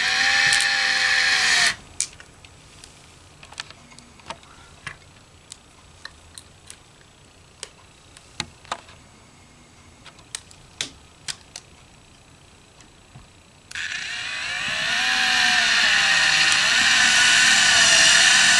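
Cordless drill-driver motor whining as it drives small wood screws through a pickguard into a bass body, once for under two seconds at the start and again for the last five seconds, its pitch wavering with the trigger. In between, scattered light clicks and taps.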